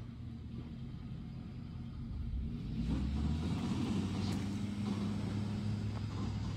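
A motor vehicle's engine running steadily with a low hum, getting louder about two and a half seconds in.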